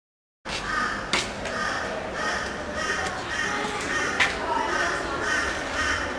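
Busy background with a murmur of voices and a harsh call repeating about twice a second, starting abruptly about half a second in; two sharp clicks, one about a second in and one about four seconds in.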